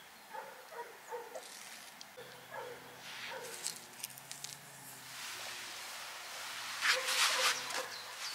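Faint animal calls: several short pitched sounds that bend in pitch, mostly in the first three seconds. A few short bursts of noise come around four and seven seconds in.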